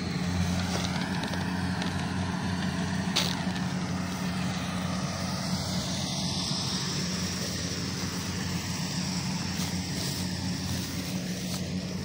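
Kubota DC-70 combine harvester running steadily: the diesel engine's even drone together with the noise of its harvesting machinery, with one brief knock about three seconds in.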